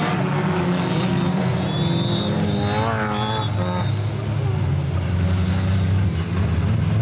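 Engines of a pack of stock cars, old hatchbacks, running hard as they race round a dirt track, a steady low drone of many engines together.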